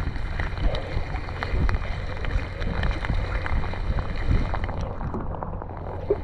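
Wind buffeting the microphone with a steady low rumble, over a hiss of wind and water, with a few small clicks and knocks from handling the fish grip and lure.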